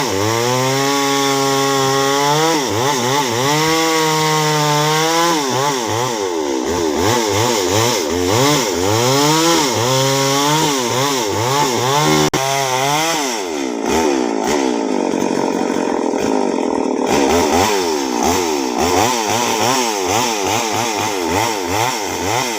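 Chainsaw engine revving up and down over and over as it saws a soft kan lueang log into planks, with a steadier, lower-pitched stretch of cutting in the middle.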